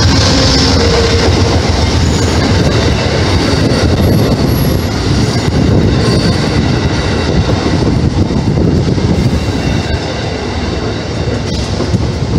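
Amtrak passenger train's stainless-steel coaches passing close by, a loud, steady rumble of wheels on the rails that eases a little in the second half.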